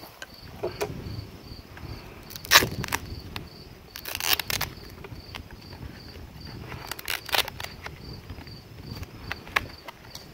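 Hands handling an airgun target of denim layers and a boxed pound of lard: rustling and crinkling of cloth and cardboard packaging with a few sharp clacks, the loudest about two and a half seconds in and more around four and seven seconds. Behind it an insect chirps steadily, about twice a second.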